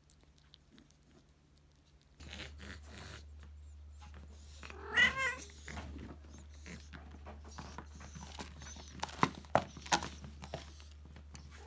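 A cat meows once, a short call that bends in pitch, about five seconds in. A few sharp clicks follow about nine to ten seconds in, and another meow begins right at the end.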